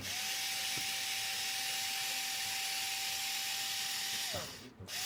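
Electric screwdriver motor running steadily with a whine and hiss, backing out the screws of a synthesizer case. It spins down about four seconds in and starts again just before the end.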